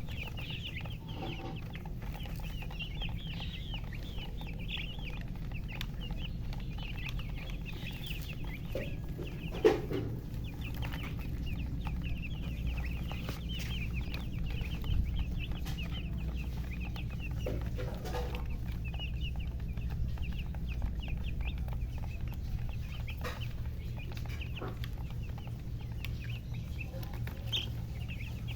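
Chickens chirping: a continuous chorus of many quick, high peeps. A steady low hum runs underneath, and there is a single sharp knock about ten seconds in.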